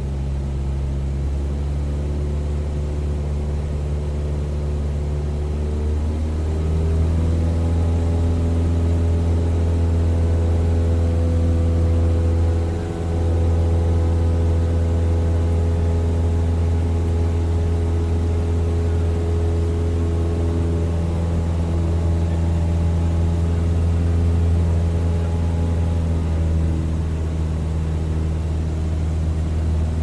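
Propeller plane's engine running steadily in flight. Its pitch and loudness step up about seven seconds in, dip for a moment near the middle, and ease back slightly near the end.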